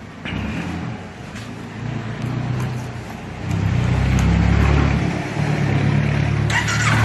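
Kawasaki Ninja 400 parallel-twin engine running at idle, getting louder about three and a half seconds in as the revs rise.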